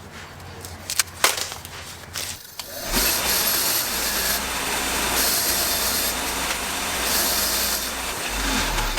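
A few clicks and knocks, then about three seconds in a sandblaster starts blasting the inside of the front brake calipers: a loud, steady hiss of air and abrasive that runs on until near the end.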